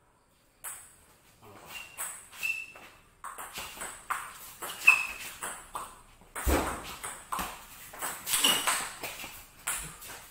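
Table tennis rally: the ball clicking back and forth off the bats and the table, about two sharp ticks a second, many with a brief high ring. The rally starts a little under a second in, with one heavier thud about six and a half seconds in.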